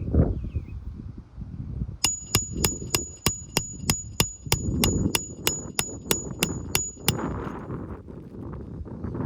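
A rapid, even run of about seventeen hammer blows, roughly three a second, each with a bright metallic ring, starting about two seconds in and stopping a couple of seconds before the end; low rustling around it.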